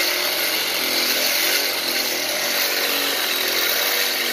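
Cordless drill running steadily under load, its bit grinding against the steel of a hood latch to enlarge (waller out) the latch's mounting holes; the motor's pitch wavers slightly as pressure on the bit changes.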